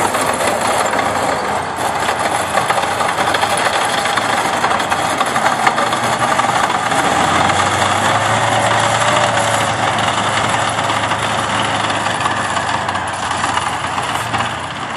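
2S19 Msta-S self-propelled howitzer driving over a dirt track: its V-12 diesel engine running with the clatter of its tracks, fading a little near the end as it moves away.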